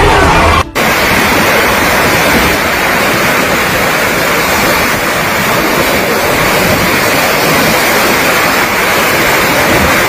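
Steady, loud rushing noise of a heavy hailstorm, hail and rain pelting a street. It starts abruptly less than a second in, after a brief cut from a deeper, rumbling storm sound.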